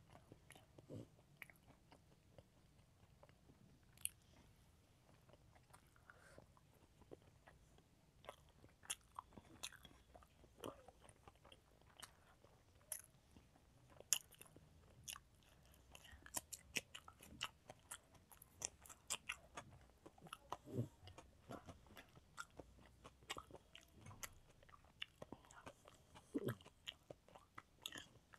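Quiet, close-miked eating sounds of rice and curry being eaten by hand: soft chewing with scattered wet mouth clicks and smacks, and fingers squishing rice on the plate. The clicks come sparsely at first and more often from about a third of the way in.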